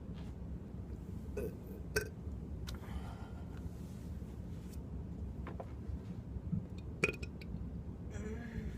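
A woman burping: a couple of short burps among a few sharp clicks and taps, over a steady low hum.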